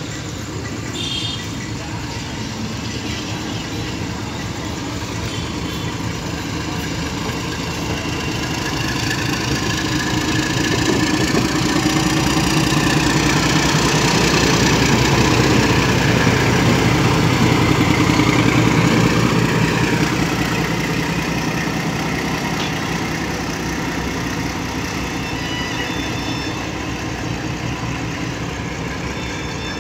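Indian Railways WDS-6 diesel shunting locomotive running as it passes slowly. Its engine grows louder to a peak about halfway through, dips slightly in pitch as it goes by, and fades as it moves away.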